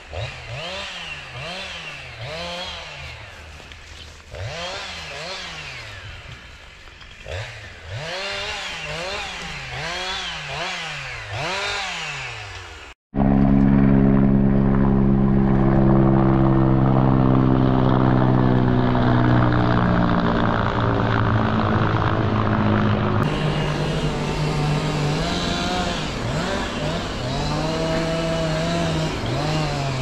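Two-stroke chainsaw used by loggers felling trees. For the first dozen seconds it is fainter, revving up and down over and over. After a sudden cut it is much louder, running steadily under load with its pitch slowly sagging, then revving up and down again near the end.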